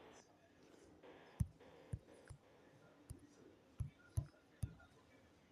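Faint, irregular soft taps or clicks, about seven of them in a few seconds, with long quiet gaps between.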